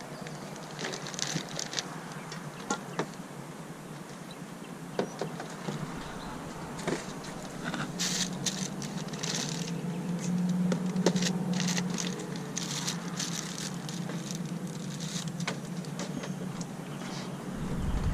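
A low motor hum that swells for a few seconds and then eases off, under scattered clicks and rattles of objects being handled.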